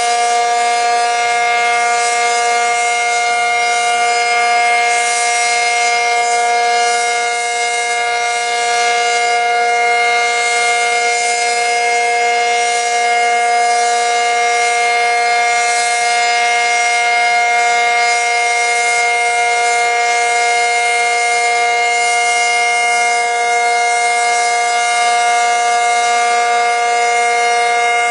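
ACA Cyclone 125 outdoor warning siren sounding the steady alert signal: one loud, continuous tone held at a level pitch with no rise or fall.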